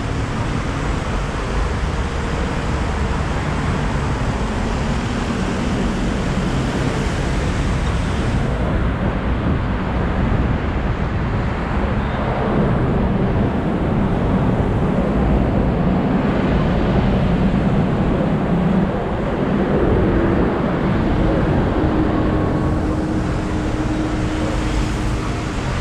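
Steady rumble of engine, tyre and wind noise from a vehicle moving through slow highway traffic, with a faint steady hum in the last few seconds.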